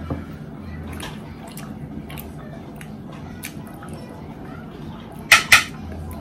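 Close-up eating sounds: soft, wet mouth noises and small clicks while chewing mashed potatoes, then two sharp clinks of a fork against a china plate about five seconds in.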